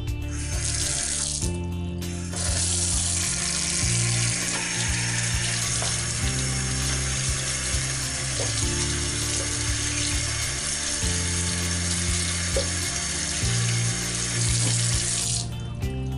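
Kitchen tap running into a stainless steel sink, the water splashing over a beef roast being rinsed by hand. The water comes on just after the start, thins briefly, then runs steadily and is turned off near the end. Background music plays underneath.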